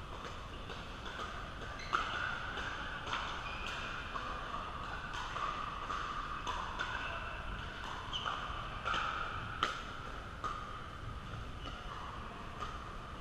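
Pickleball paddles striking a plastic pickleball in a doubles rally: sharp pops at irregular intervals, the loudest about two seconds in and again near ten seconds, over a steady background din from the hall.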